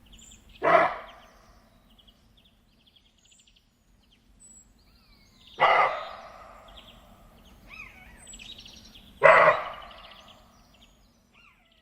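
Deer barking: three loud, short calls a few seconds apart, with birds chirping softly in the background.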